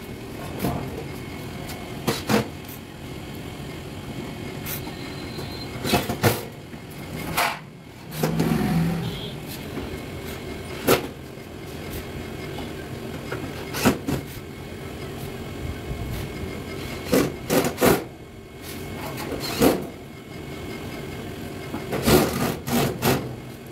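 Scattered knocks and clicks from work on the sheet-metal casing of a split air conditioner's outdoor unit, with a cordless drill-driver in use, over a steady low hum.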